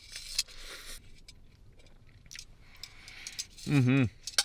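A person slurping and chewing ramen noodles, starting with a hissy slurp, then quieter chewing with small clicks. A short vocal sound comes about three and a half seconds in.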